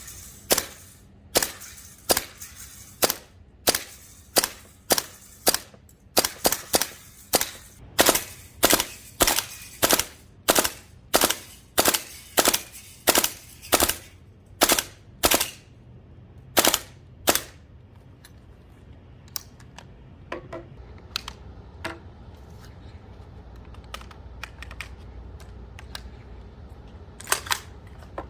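GHK AK gas-blowback airsoft rifle firing single shots in steady succession, about one or two a second, each a sharp crack. The shots stop about two-thirds of the way through, leaving only faint clicks, and then two quick shots come near the end.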